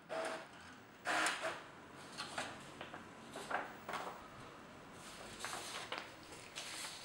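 Irregular sliding and rustling strokes of paper sheets being handled, with a Brother inkjet printer working alongside and feeding out a printed page.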